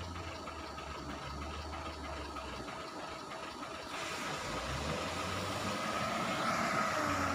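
Wheel loader's diesel engine running as the machine drives, with a low rumble and a steady whine that gets louder over the last couple of seconds.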